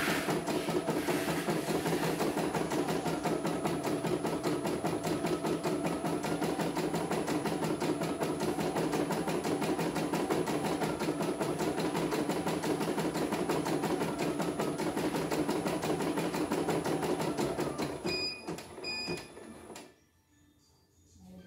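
CNY E900 computerized embroidery machine stitching steadily with rapid, even needle strokes. It stops near the end and gives two short beeps, the signal that a colour section is finished and it is time to change thread.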